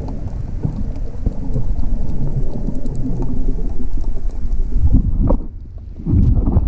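Low, muffled rumble and sloshing of water heard through a camera held under water. About five seconds in it drops away for a second, then returns with a couple of sharp knocks as the camera nears the surface.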